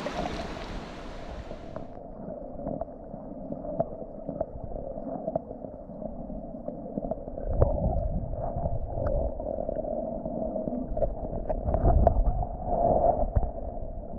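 Stream water heard muffled, as with the microphone under water: a steady dull rush with scattered clicks and gurgles, and twice a heavier low rumble. The high end cuts off suddenly about two seconds in, as the microphone goes under.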